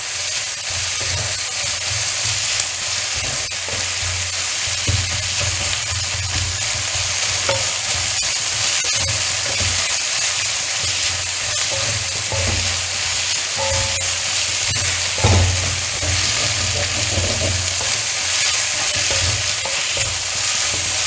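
Sliced onions, crushed ginger and garlic, green chillies and curry leaves sizzling steadily in coconut oil in a wok, half wilted, with a spatula stirring and scraping against the pan at irregular intervals.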